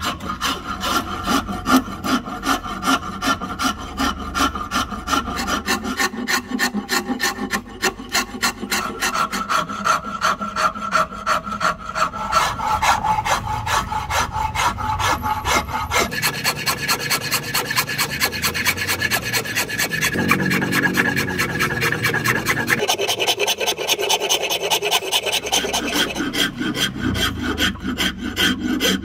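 A rasp worked in rapid back-and-forth strokes on an ebony axe handle, shaping the wood by hand. The strokes change in tone about halfway through.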